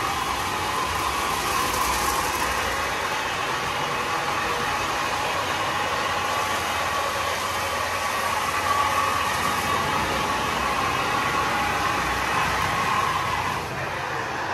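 WashBot Transformer 3XM in-bay automatic car wash running its soft-touch cycle: a spinning cloth brush and cloth curtain working over the car amid water spray, with a steady machine hum. It gets a little quieter near the end.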